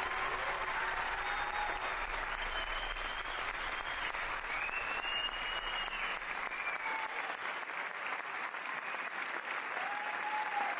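Audience applauding steadily, with a few cheering voices rising above the clapping.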